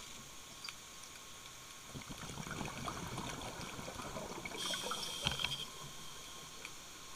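Scuba diver's breathing through a regulator: a crackling burble of exhaled bubbles from about two seconds in, then a hiss of an inhaled breath lasting about a second.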